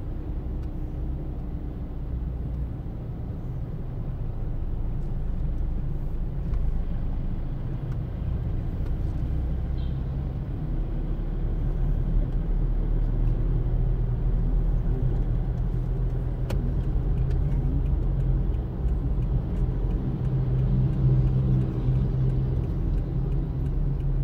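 Steady low rumble of a taxi car's engine and tyres heard from inside the cabin as it drives in traffic, growing a little louder in the second half.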